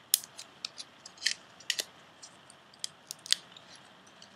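Scattered light ticks and small crisp rustles of fingers handling small cardstock flowers and adhesive foam dimensionals, pressing them onto a paper topper.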